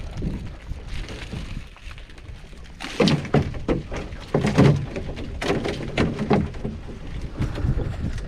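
A run of knocks and clatter from gear being handled aboard a small skiff, loudest between about three and seven seconds in, over a low rumble.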